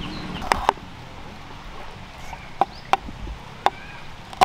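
Knife cutting vegetables on a cutting board: about six sharp, separate knocks of the blade, spaced unevenly over a quiet background.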